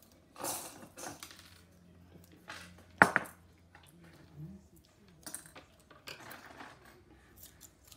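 Scattered clicks and rustles of craft materials handled on a tabletop, with one sharp click about three seconds in. About six seconds in there is a short rasp as tape is pulled from its roll.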